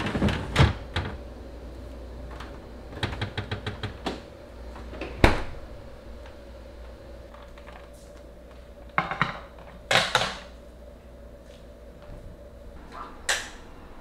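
Plastic refrigerator drawers and shelves being pulled out and handled: a quick run of clicks and clacks, a sharp knock about five seconds in, and clattering knocks around nine and ten seconds in as clear plastic shelves are set down on a table, then one more near the end.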